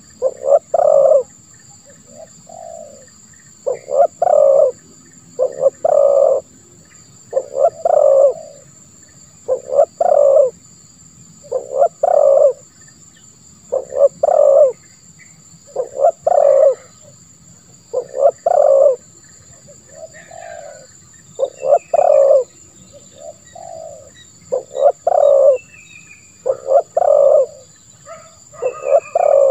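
Spotted dove (tekukur) cooing over and over in the deep, hoarse 'ngeruk' style, a loud phrase about every two seconds, with fainter coos in some of the gaps.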